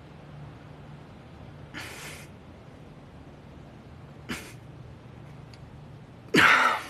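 Two soft breathy exhales, one about two seconds in and a shorter one about four seconds in, over a low steady hum. A voice cuts in loudly just before the end.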